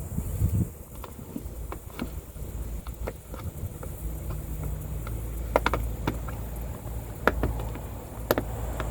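Scattered light clicks and knocks of radiator clips and parts being handled and pushed into place, several sharper taps in the second half, over a steady low rumble.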